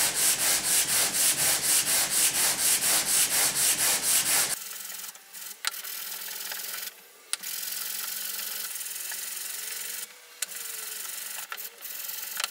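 Sapele wood plane body rubbed back and forth on sandpaper taped to a flat board, truing the plane's sole: fast, even scraping strokes, about four a second. The strokes stop abruptly about four and a half seconds in, leaving a faint low steady hum with a few clicks.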